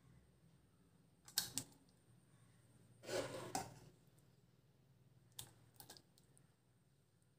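A metal ladle clinking lightly against a steel pot and a stainless-steel bowl while drumstick dal is served. About three seconds in comes a short wet slop as a ladleful of the dal goes into the bowl, and two more light clinks follow near the end.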